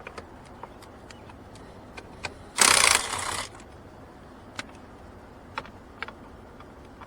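A small power driver with a 5.5 mm socket buzzes for about a second, spinning out one of the small bolts under the steering column. Scattered light clicks of the tool and metal parts are heard on either side.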